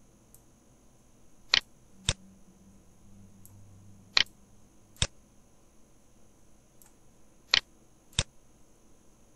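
Computer mouse buttons clicking six times, in three loose pairs about half a second apart.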